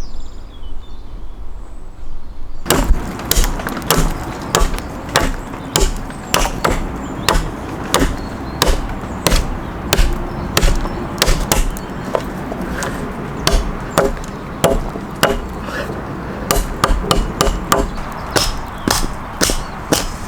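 A knock, then from about three seconds in, regular sharp strikes on wood, about two a second, like a hand tool chopping or hammering timber.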